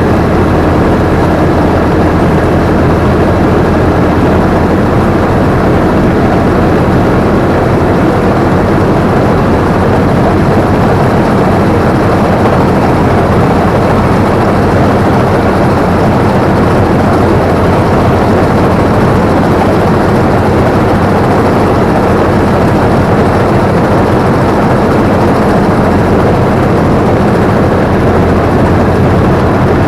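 Combine harvester running steadily at working speed: diesel engine drone together with the continuous clatter and whir of the threshing and cutting machinery, heard from the operator's seat.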